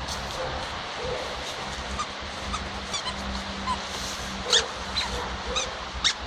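Dog chewing a rubber squeaky toy, making it squeak in short, sharp bursts; the loudest squeaks come about halfway through and near the end.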